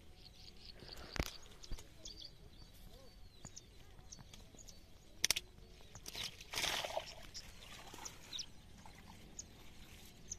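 Faint rustling and swishing of a wet nylon cast net being gathered up in shallow water and grass, with two sharp clicks and a louder swish past the middle. Faint short bird chirps come and go.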